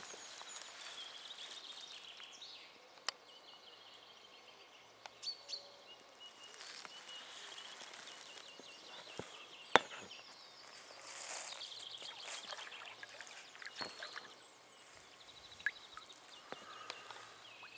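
Small birds singing and calling with repeated high chirps and trills, over a faint outdoor background. A few sharp knocks break in; the loudest is about ten seconds in.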